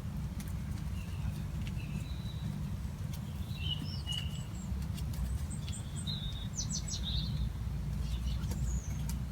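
Small birds chirping and trilling off and on over a steady low rumble, with a few faint clicks.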